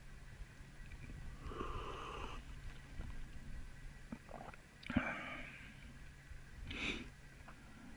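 Faint breathing noises close to the microphone, twice, with a short sharp click about five seconds in, over a low steady rumble.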